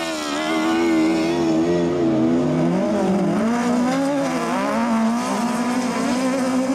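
Engines of several all-wheel-drive autocross buggies (up to 1600 cc) racing on a dirt track, their pitch rising and falling as they rev through corners and gear changes.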